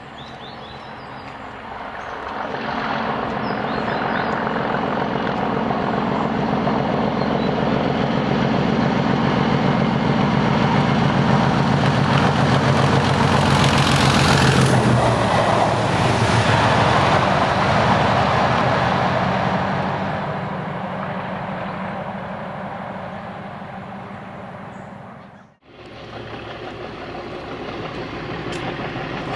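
Class 37 diesel locomotive's English Electric V12 engine running as it approaches, growing louder, passing close by about halfway through with a drop in pitch, then fading away. After a sudden break near the end, another Class 37 engine runs more quietly as it approaches.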